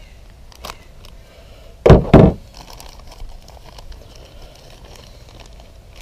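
Two dull thumps close together about two seconds in as a pair of needle-nose pliers is set down on the hard work surface, after a small click. Faint plastic rustling follows.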